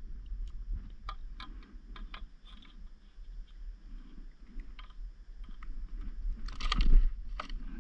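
Scattered light clicks and knocks of gear being handled on a paddleboard, with a louder clatter near the end.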